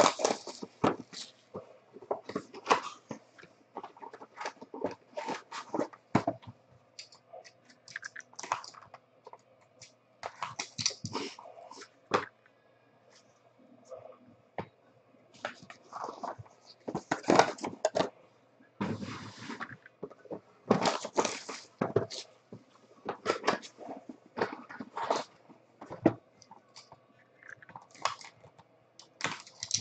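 Trading card boxes and packs being handled and opened: irregular rustling, scraping and tapping of cardboard and plastic packaging.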